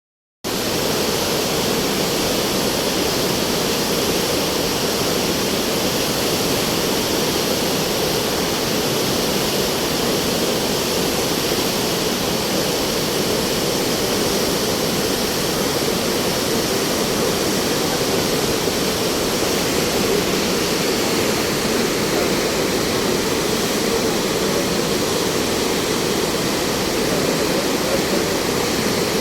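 Rushing water: a loud, steady, unbroken rush with no pitch or rhythm in it.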